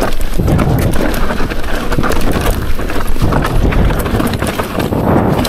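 Rocky Mountain Altitude full-suspension mountain bike descending a steep, loose, rocky trail at speed: tyres crunching and sliding over dirt and rock, with rapid clattering and knocking of the bike over rough ground and a low rumble.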